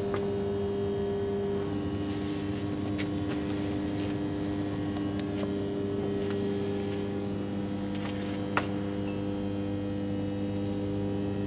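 Steady electric motor hum of the hydraulic press's power unit running idle, its pitch shifting slightly down about two seconds in. A few faint clicks sound over it, with a sharper one late on.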